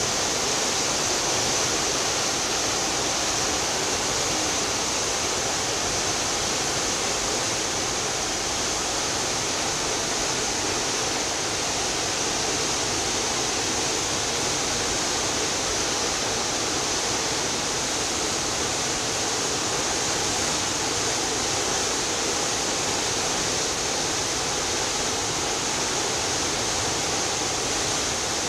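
Steady rush of sea water churned along the hull and into the wake of a cruise ship under way, an even hiss that does not change.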